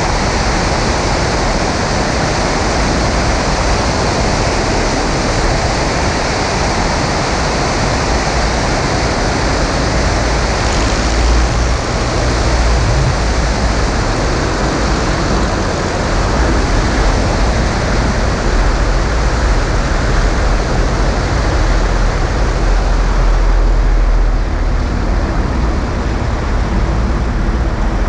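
Loud wind rush over a camera mounted on the wing strut of a Maule M5-180C in low flight, with the 180 hp engine and propeller droning under it and a heavy low buffeting rumble. The rush thins a few seconds before the end, as the tundra-tyred main wheels come down on the snow runway.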